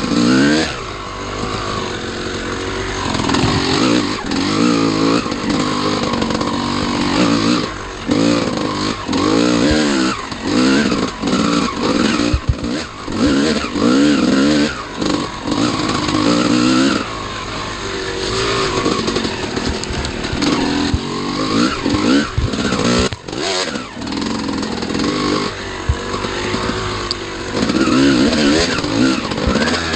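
Dirt bike engine under way on a trail, its revs rising and falling again and again as the throttle is worked, in quick bursts for several seconds midway.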